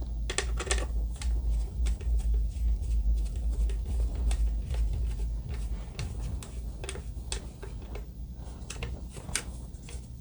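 A screw being turned by hand into a stripped hole in a plastic interior trim panel, its threads wrapped so they grip: a run of small irregular clicks and creaks from the turning screw and plastic, over a low hum.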